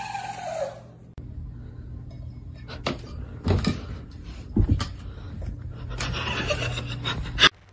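A cat moving about on top of a wooden dresser, with several light knocks and thumps over a steady low room hum.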